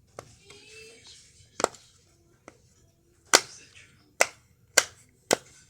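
A fidget toy being popped by hand: a string of sharp pops, about five loud ones, coming roughly every half second in the second half, with light handling rustle and fainter clicks before them.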